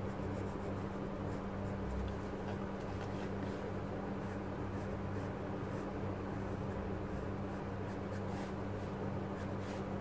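Graphite pencil sketching on sketchbook paper: short, light scratchy strokes, over a steady low hum.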